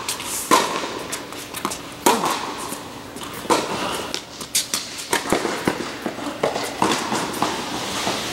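A tennis rally on a hard court: a series of sharp pops from the ball being struck by rackets and bouncing, spaced about half a second to a second apart, each echoing around a large indoor hall.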